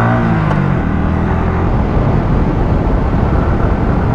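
Yamaha R15 V3's single-cylinder engine pulling in first gear, its note rising a little. About two seconds in it gives way to a steady rush of wind and road noise at cruising speed.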